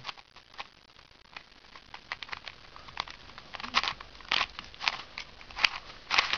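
Plastic Rubik's Cube being twisted by hand: irregular clicks and short scrapes as its layers turn, busier from about three and a half seconds in.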